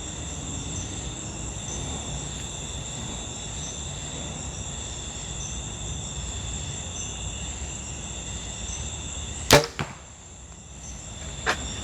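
A compound bow shot about ten seconds in: one sharp, loud snap of the string release and arrow launch. Insects trill steadily throughout.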